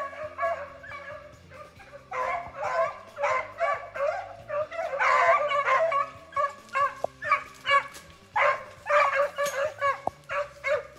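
A pack of beagles baying on the chase, running a snowshoe hare's track, with repeated bays from several dogs overlapping. The voices grow louder from about two seconds in.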